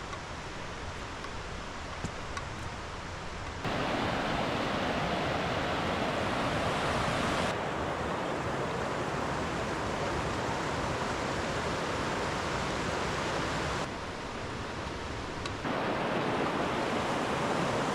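Rushing water of a mountain creek running over rocks, a steady noise with no pitch that gets louder about four seconds in and drops back briefly near the end.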